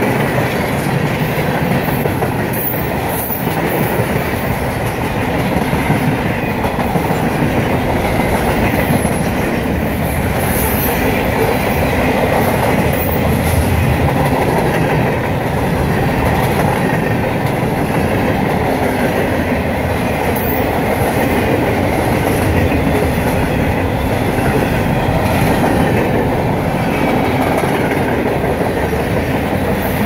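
Freight train cars, tank cars, covered hoppers and boxcars, rolling steadily past close by: a continuous rumble of steel wheels on the rails.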